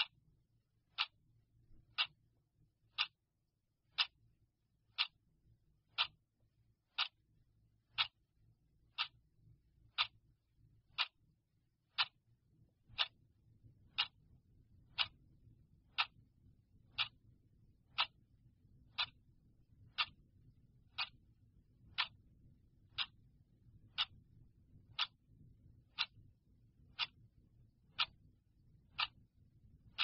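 Clock ticking steadily, one sharp tick each second.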